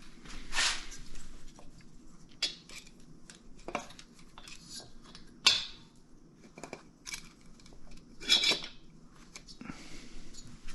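Steel feeler-gauge leaves clicking, clinking and sliding as they are handled and slipped under an engine cylinder. Scattered light clicks, with a few louder metal scrapes.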